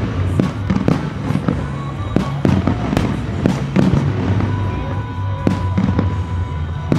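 A fireworks display going off in quick succession: aerial shells and water shells bursting at the pond's surface, with many sharp bangs, about two a second. Music plays underneath.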